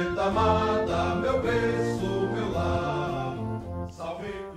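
Music: a choir singing a song in Portuguese with accompaniment, in long held chords that fade out near the end.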